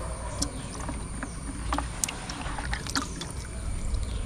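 Water splashing and dripping in short irregular bursts over a low steady rumble, as fish are handled in the water.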